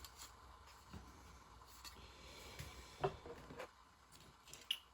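Faint rustling and a few light clicks of plastic model kit parts being handled, the sharpest click about three seconds in and another near the end.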